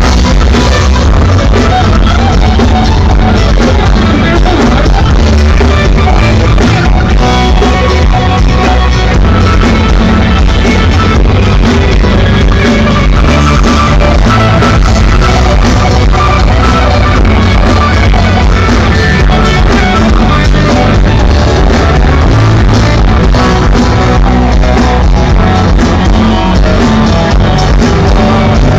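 Loud, steady pop-rock music from a band performing live in concert.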